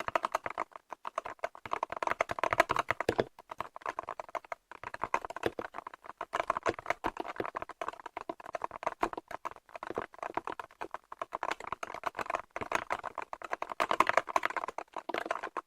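Typing on a 68-key gaming keyboard with alloy yellow magnetic switches: a fast, continuous run of keystroke clacks with a few short pauses.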